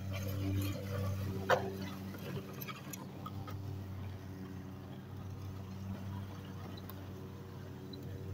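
A Hoover spin sweeper L1400 push sweeper rolling over a driveway, its wheel-driven brushes and gearing making a run of irregular ticking clicks over a steady low hum. One sharp, louder click comes about a second and a half in.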